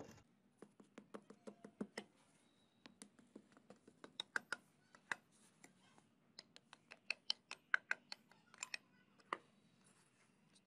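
Irregular sharp crackles and pops, several a second, from damp soil against a hot steel cleaver blade buried in it, which is smoking as it cools.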